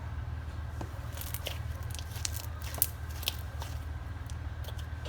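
Freshly made slime being squished and poked by hand, giving irregular small clicks and pops over a steady low hum.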